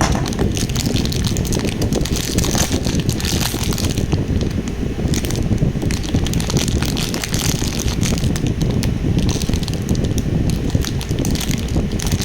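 Plastic packaging crinkling and crackling as it is handled, in bursts, over a steady low rumble.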